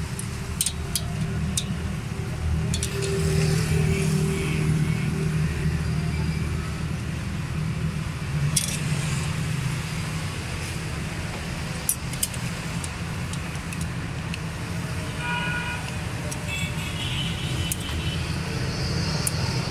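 Small metallic clicks and clinks from a feeler gauge and tools working the valve rocker arms of a Suzuki Alto 1000cc engine during a tappet clearance check, over a steady low vehicle rumble.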